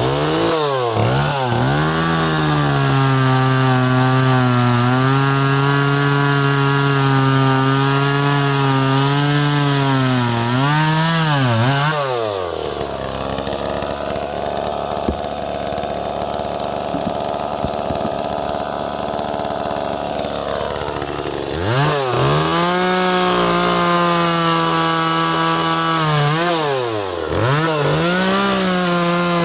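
A 30cc Echo chainsaw running hard through wood. Its engine pitch holds high, then sags and recovers several times as it works through the cut. For a stretch in the middle the sound turns rougher and steadier.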